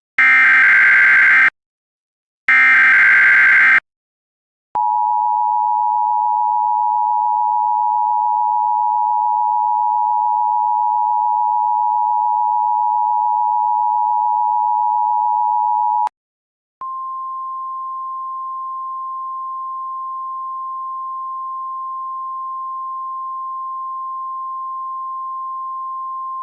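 Emergency Alert System tones. Two short bursts of the warbling digital SAME header data come first. Then the two-tone EAS attention signal (853 and 960 Hz together) holds steady for about eleven seconds, cuts off, and after a brief gap a single steady 1050 Hz tone, quieter, sounds for about ten seconds.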